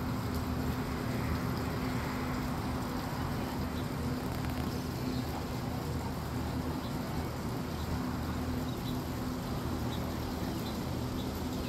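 A steady low machine hum that holds an even pitch without change, with a few faint ticks over it.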